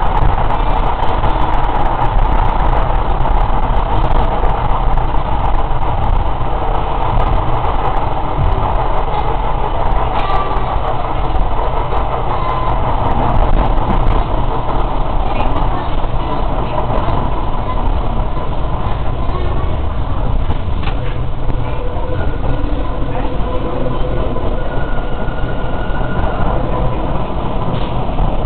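Electric Tyne and Wear Metro train running along the track, heard from on board at the front window: a steady rumble of wheels on rails with occasional sharp clicks.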